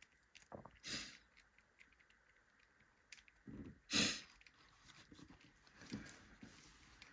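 Small metal lock parts being handled and worked with tools: scattered light clicks and short scraping noises, the loudest scrape about four seconds in.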